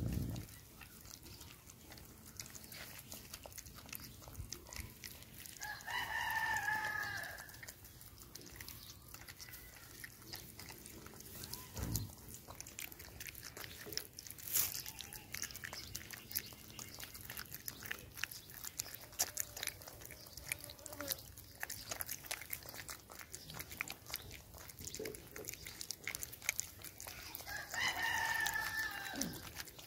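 A puppy eating rice from a plate, a run of small chewing and licking clicks. A rooster crows twice, once about six seconds in and again near the end.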